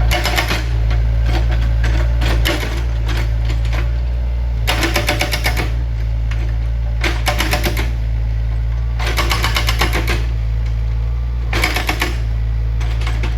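Heavy machine's engine running with a steady low rumble, broken about six times by short bursts of rapid metallic clatter.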